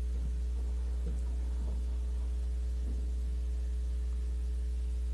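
A steady low hum that does not change in level or pitch, with a few very faint short sounds over it.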